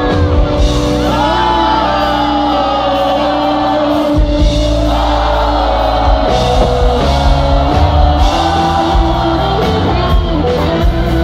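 Live sertanejo music played loud over a PA, with a sung melody held in long notes over heavy bass and drums, and crowd shouts mixed in; distorted, as recorded on a phone.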